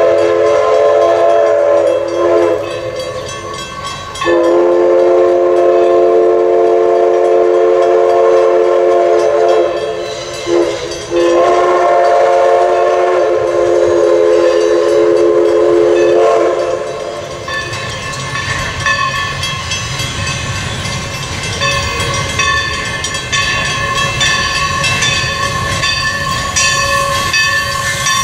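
Steam whistle of Everett Railroad No. 11, an ALCO 2-6-0 Mogul, blowing a chord in the grade-crossing pattern: a blast ending about two seconds in, then long, short, long. The last blast ends a little past the middle. After that the locomotive rumbles as it approaches, with a steady ringing tone underneath.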